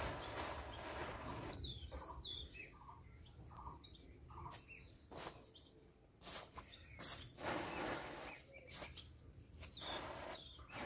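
A row of matchsticks burning, the match heads catching one after another with scattered sharp crackles and brief fizzing hisses. Small birds chirp repeatedly in the background.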